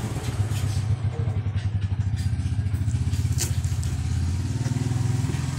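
A motorcycle engine idling steadily with a low, rapid putter, and a few sharp taps of a kitchen knife chopping greens on a wooden cutting board.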